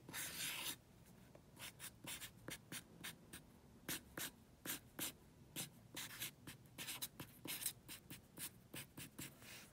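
Pen drawing on lined paper: one longer scratching stroke at the start, then a run of short, quick strokes as the sketch is drawn and hatched.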